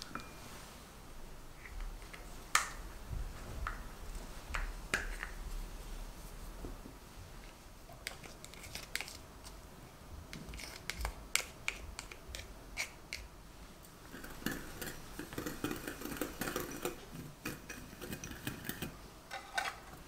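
Close-up kitchen handling sounds of small utensils on ceramic bowls: scattered clicks and taps, then a run of taps and scrapes as lemon zest is scraped off a hand grater with a spatula into sugar. Near the end comes a spell of quick, close-set scratching strokes in the bowl of sugar and zest.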